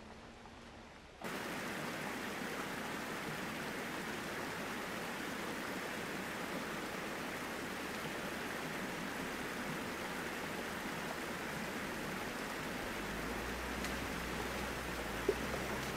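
Shallow stream rushing steadily over rocks and a small cascade, starting abruptly about a second in. Near the end a low rumble of the Mercedes X-Class pickup's engine joins in underneath as it drives into the streambed.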